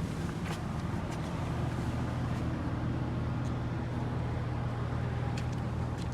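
Steady low engine hum, like a vehicle idling nearby, with a few faint clicks.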